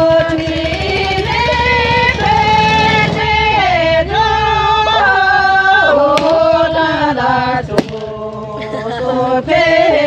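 A song playing, a singer holding long notes that step up and down in a melody over steady accompaniment, with a sharp click about eight seconds in.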